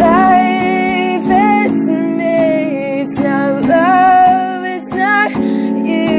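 A song: a woman singing held, wavering notes over sustained instrumental accompaniment with a plucked rhythm.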